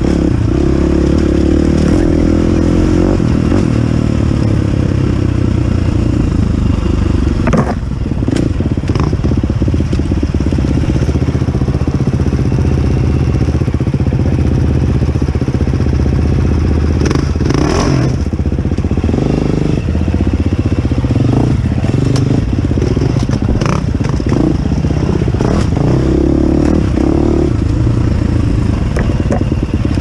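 Dirt bike engine running hard over rough rocky trail, the revs rising and falling as the throttle is worked, with a few sharp knocks and clatters from the bike striking rocks.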